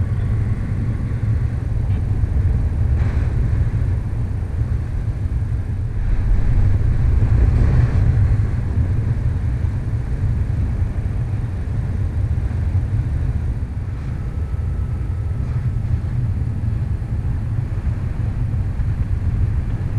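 Wind rushing over the camera's microphone during paraglider flight: a steady low rumble that swells somewhat about six to eight seconds in.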